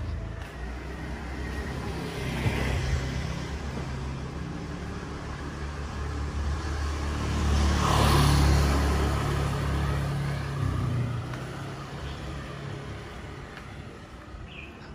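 A motor vehicle passes close by on the street: engine and tyre noise rise to a peak about eight seconds in and then fade away, over a steady low traffic rumble.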